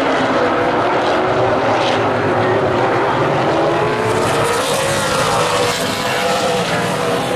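Super late model stock cars' V8 engines running hard around the oval, several engine notes blended together, their pitch dipping and rising again about four to five seconds in as the cars pass and lift through a turn.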